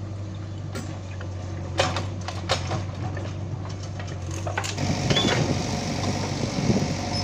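Diesel engines of a tractor and a backhoe loader running steadily, with a few sharp knocks as soil and clods drop into the tractor's steel trolley. From about five seconds in, the sound gets louder and rougher as the backhoe works its bucket over the trolley.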